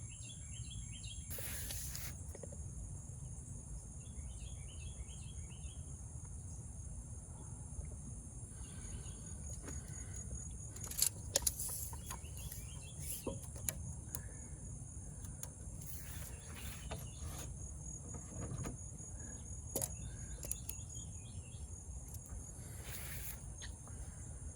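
Outdoor ambience: a steady high-pitched chirring of insects such as crickets over a low background rumble, with a few short bursts of bird chirps and some faint clicks.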